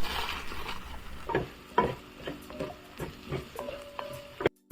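A spoon stirring onions, peppers and spices frying in oil in a pan: a light sizzle with a run of short scrapes and knocks against the pan, about three a second. The sound cuts out just before the end.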